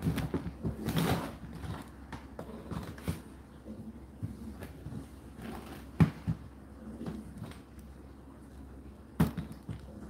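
Indesit IDC8T3 condenser tumble dryer running, with a steady low hum under irregular thuds and knocks as the load tumbles in the turning drum; two sharp knocks stand out, about six and nine seconds in.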